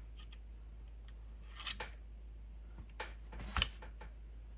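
A few brief clicks and light scrapes of small hard plastic and metal parts being handled while a model RC car's wheel is taken off its axle, the loudest about three and a half seconds in.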